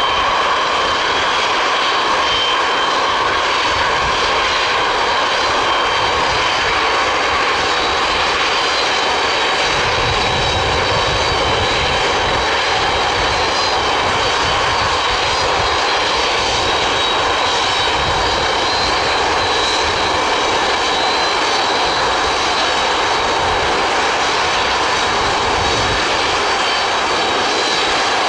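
Antonov An-225's six turbofan engines running steadily at low power as the aircraft taxis, a constant jet whine over a broad rush of noise. A deeper rumble grows stronger about ten seconds in.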